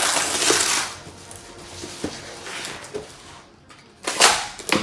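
Plastic wrap around a foam packing block being slit with a utility knife and crinkled. There are two loud rustling bursts, one at the start and one near the end, with a few light clicks between them.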